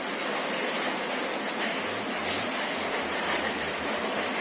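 Steady rushing noise with no rhythm or pitch.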